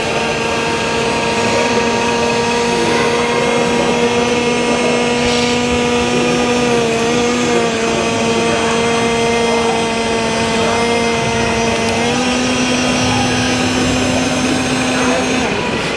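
RC model excavator's motor giving a steady whine as its upper body swings round. The pitch wavers briefly about seven seconds in, steps up slightly about twelve seconds in, and cuts off just before the end.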